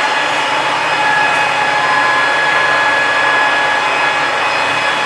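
Large 40-inch by 85-inch manual lathe running under power, with the spindle turning in the reverse direction. It makes a steady mechanical hum with a constant high whine over it.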